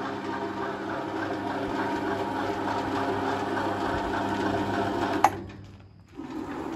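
A small motor-driven power tool running steadily at constant speed, cutting off with a click about five seconds in.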